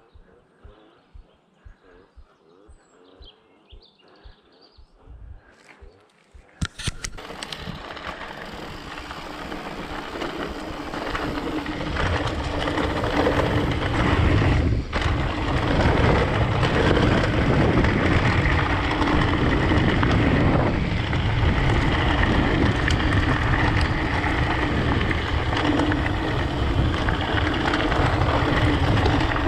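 Wind rushing over the microphone and dirt-track rolling noise from a mountain bike under way. It starts suddenly about seven seconds in and grows louder, after a quiet stretch with soft regular thumps.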